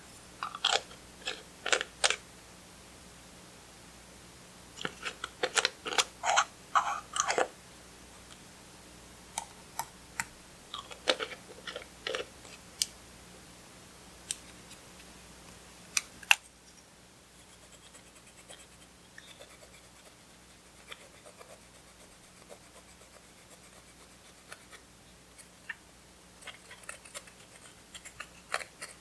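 Clear slime being squeezed and kneaded by hand, giving bursts of sticky clicks and small pops in clusters over the first dozen seconds, then a sharp click about sixteen seconds in followed by fainter, scattered clicks.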